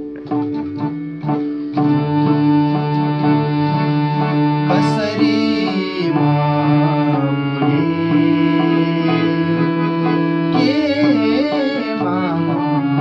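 A harmonium sustains held notes under a man's singing voice, which breaks into wavering runs about five seconds in and again near eleven seconds. Drum strokes keep time underneath.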